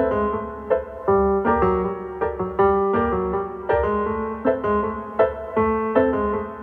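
Background piano music: single notes and chords struck about two a second, each fading away before the next.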